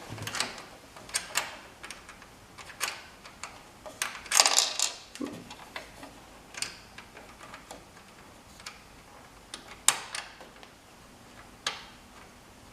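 Irregular sharp metal clicks and clinks of nuts, washers and bracket hardware being handled, with a quick cluster of clicks about four seconds in.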